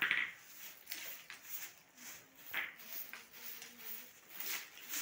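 Repeated rustling and scraping of dry twigs and litter being gathered up off a concrete step and weedy ground, with the loudest scrape right at the start.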